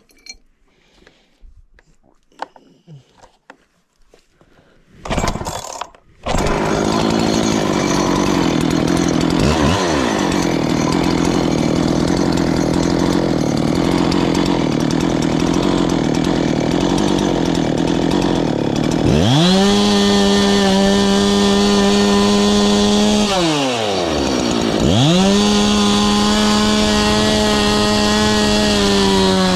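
Husqvarna chainsaw mounted on a chainsaw mill, started after a few faint knocks. It fires in a short burst about five seconds in and catches about a second later, then runs steadily. Twice it revs up to a high steady whine, dropping back briefly in between.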